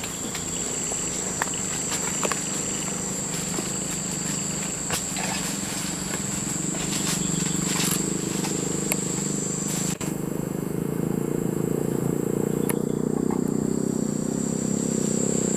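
Insects droning on one steady high pitch, which weakens about ten seconds in, over a steady low rumble that grows louder in the second half.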